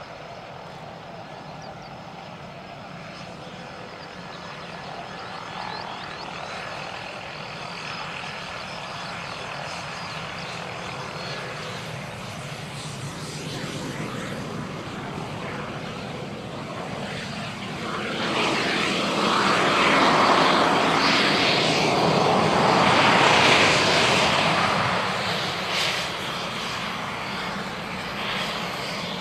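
Saab JAS 39 Gripen C's single Volvo RM12 turbofan running at taxi power, a steady jet hiss with a faint whine. It grows much louder about two-thirds of the way through, then eases off near the end.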